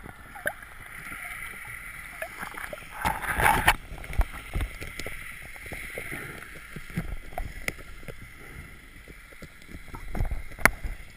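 Underwater sound through a camera's waterproof housing: a steady hiss of water with many small scattered clicks and knocks, a louder noisy swell about three seconds in, and a sharp click near the end.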